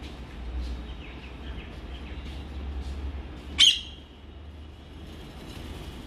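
Rose-ringed parakeets giving a few faint chirps, then one short, shrill screech about three and a half seconds in, the loudest sound, over a steady low hum.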